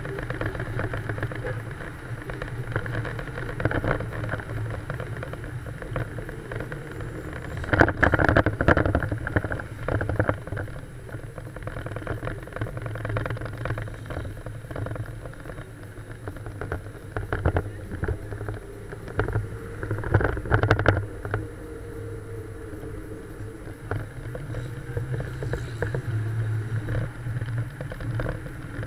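Old car's engine running as it drives along a street, mixed with road and wind noise; the sound swells louder twice, about 8 seconds in and again about 20 seconds in.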